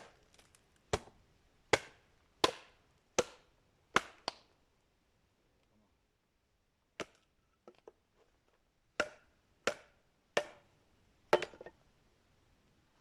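Axe chopping wood: a run of sharp blows about one every three quarters of a second, a pause of a few seconds broken by a single blow and faint taps, then four more blows.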